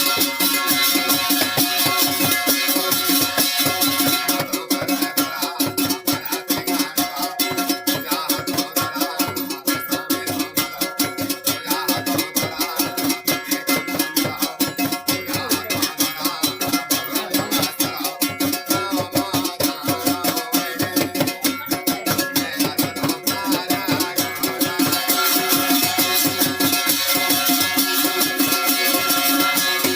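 Garhwali folk music with a fast, even beat and plucked-string instrument sounds over held tones.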